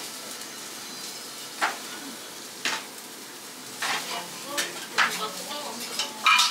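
Food sizzling as it fries, a steady hiss, with several sharp clinks of utensils through it.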